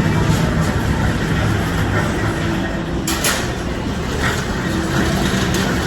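Steady background din of a busy indoor shopping centre, a low rumble with faint indistinct voices, and a short rustle or clatter about three seconds in.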